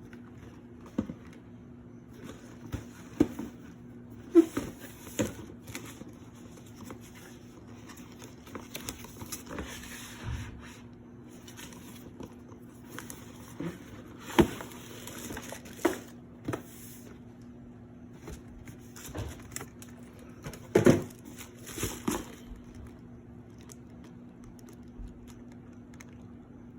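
A sneaker box and its paper wrapping being handled: scattered knocks and thuds, the loudest about four, fourteen and twenty-one seconds in, with bursts of paper rustling and crinkling, over a steady low hum.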